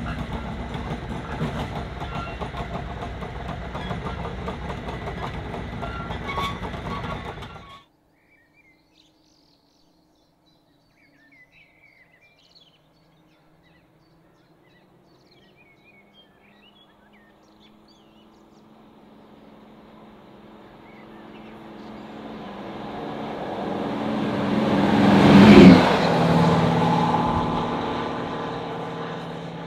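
A locomotive runs close by with a loud, steady rumble that cuts off abruptly about a quarter of the way in. After a quiet spell with faint birds chirping, another locomotive is heard approaching, passing loudest about 26 seconds in, and fading as it moves away.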